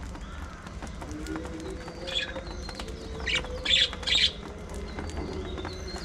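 Budgerigars chirping: a handful of short, sharp chirps bunched together in the middle, the loudest two close together, over a low steady hum.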